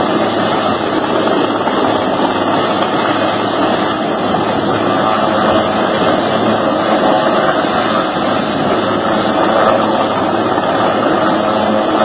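Helicopter running steadily at close range, a loud, even rushing noise from its engine and rotor.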